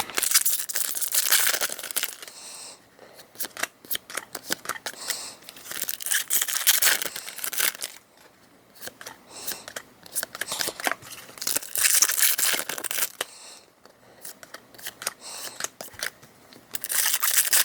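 Foil Pokémon trading-card booster packs being torn open and the cards handled, in several separate bursts of crinkling and tearing with quick clicks and snaps.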